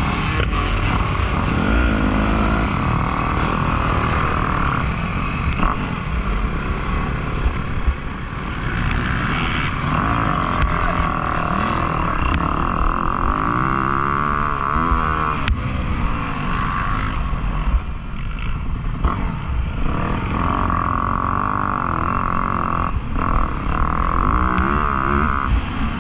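Motocross dirt bike engines racing, revving up and dropping off again and again as the riders work through the gears.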